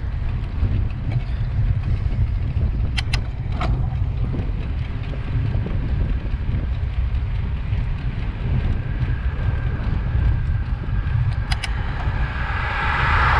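Wind rumbling over the microphone of a camera riding along on a bicycle, steady throughout. A few sharp clicks come about three seconds in and again near the end, and in the last seconds the rush of a car swells as it approaches and passes.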